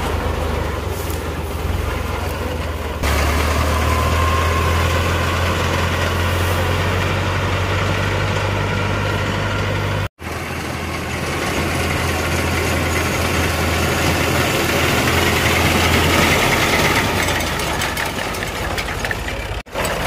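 Al Ghazi 65 hp tractor's diesel engine running steadily under load as it drives a front-mounted wheat reaper through standing wheat. The sound cuts out abruptly for a moment about ten seconds in and again near the end.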